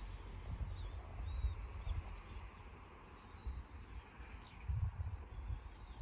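Wind buffeting the microphone in uneven gusts, loudest near the start and again near the end, with a few faint bird chirps in the background.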